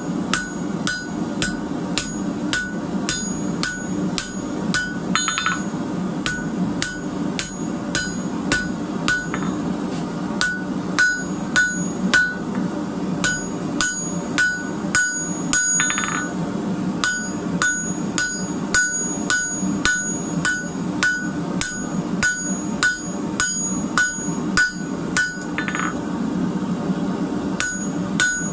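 Hand hammer striking a glowing-hot steel bar on a steel anvil, about two blows a second, each blow with a short, bright metallic ring. A steady low hum runs underneath.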